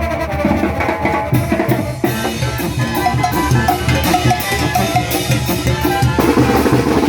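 A Mexican banda playing live: drums keep a steady beat under held notes from the wind section.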